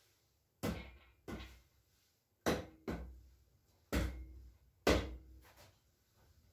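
About six sharp knocks of a mallet tapping a Honda K20A2 cylinder head down onto the engine block to seat it. The knocks come irregularly over about five seconds, the last one followed by a weaker tap, and some leave a short metallic ring.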